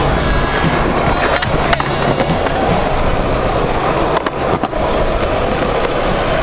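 Skateboard wheels rolling over concrete, a steady rumble, with sharp clacks of the board about a second and a half in and again around four seconds in.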